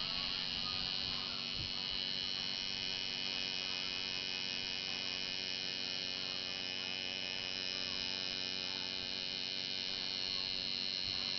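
Electric tattoo machine buzzing steadily as its needle works black line work into the skin of a chest.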